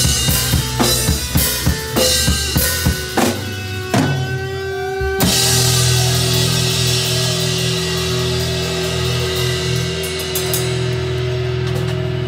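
Live rock band with drum kit, electric guitars and bass playing the last bars of a song: steady driving drum hits with guitar, then a final hit with a cymbal crash about five seconds in and one chord held ringing for about seven seconds.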